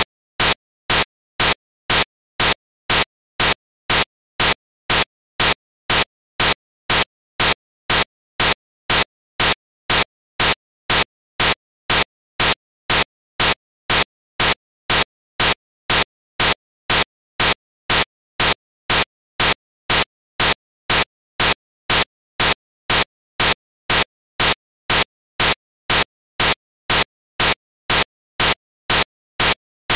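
Sharp, evenly spaced clicks, about two a second, with silence between them: a repeating digital glitch in the sound track while the picture is frozen.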